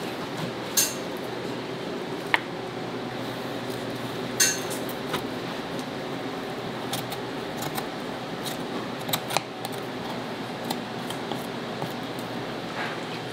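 Dishes and metal utensils clinking and knocking in a restaurant kitchen, two sharper ringing clinks among scattered small clicks, over a steady background noise.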